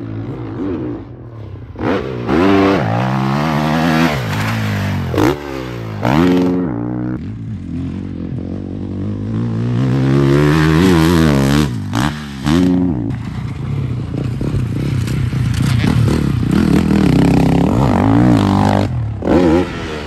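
Honda CRF450RW four-stroke single-cylinder motocross engine revving hard and backing off over and over, its pitch climbing and dropping as the throttle is opened and closed through jumps and corners. The sound breaks off abruptly several times and starts again at a different pitch.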